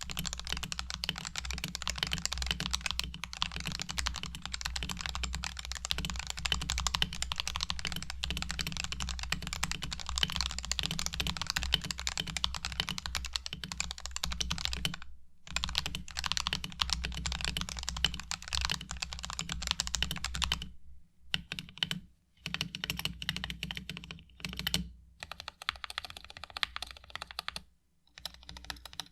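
Typing on a Razer Huntsman TE mechanical keyboard fitted with Razer red linear optical switches, modded with lubed switches and stabilizers and two layers of sound-dampening foam in the case. Fast continuous typing, with a brief pause about halfway, then sparser keystrokes broken by short silences in the last third.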